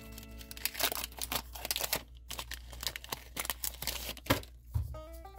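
Foil trading-card booster pack torn open and crinkled by hand, with dense sharp crackling throughout and a dull thump near the end.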